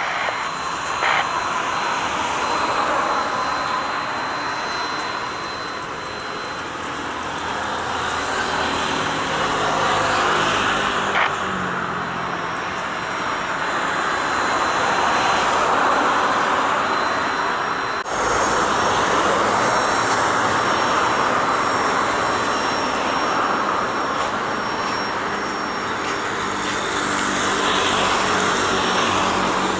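Jet airliner engines running as a plane flies low on its approach to land, the roar swelling and easing several times. There is a sudden break about eighteen seconds in.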